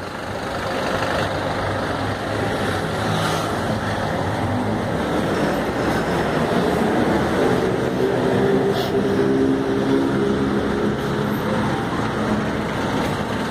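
Street traffic: city bus and car engines idling and creeping in a jam close by, a steady rumble. About halfway through, the steady hum of a nearby bus engine stands out.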